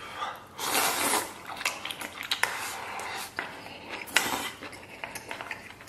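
A person slurping and chewing strips of beef tripe from a stainless-steel bowl, with chopsticks clicking against the bowl. Two long slurps stand out, about a second in and about four seconds in.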